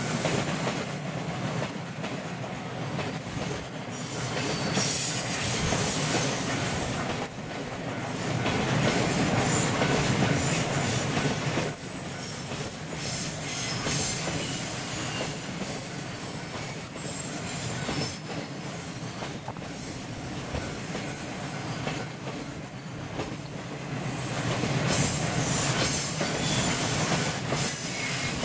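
Container wagons of a long freight train rolling past on a curve: steel wheels on rail making a steady rumble with clacks, and thin high flange squeal from the curve. The level swells and eases as the wagons go by.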